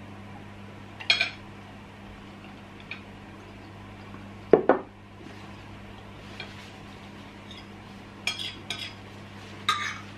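Knife and fork clinking and scraping on ceramic dinner plates, a few short sharp clinks spread through, with one heavier double knock about halfway, like a drinking glass set down on the table. A steady low hum sits underneath.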